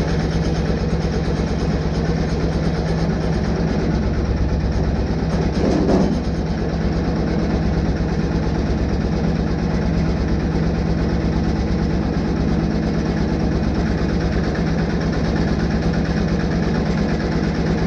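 Single-cylinder air-cooled Deutz diesel on a 1970s Case roller running steadily, with an even, fast chugging beat. There is a brief louder swell about six seconds in.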